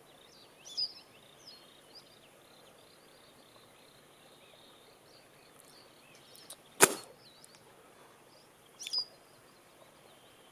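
Fly rod and line swishing through the air once on a cast, sharp and brief about seven seconds in, over faint chirping birdsong, with a shorter call near the end.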